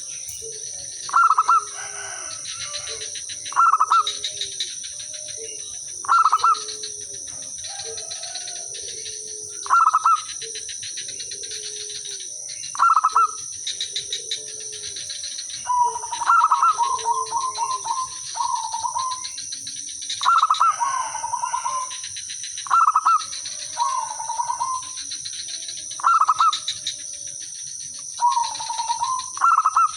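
Zebra doves cooing: a close bird repeats its short, loud staccato song every two to three seconds, with fainter, lower cooing phrases from other doves between. This is a lure bird in full song setting other doves answering. A steady high whine runs underneath.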